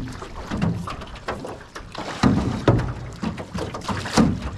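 Paddling a small rowboat: irregular knocks and thumps of the paddles against the hull.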